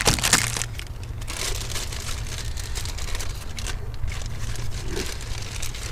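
Irregular rustling, crinkling and light clicks of a new throttle position sensor and its packaging being handled, with a sharper clatter of clicks at the very start, over a steady low hum.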